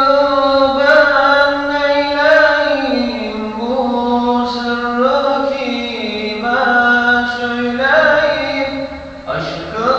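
A muezzin's unaccompanied solo male voice chanting Islamic devotional song in long, ornamented held notes. The line drops lower about three seconds in and climbs back up around the eight-second mark, with a short breath just before the end.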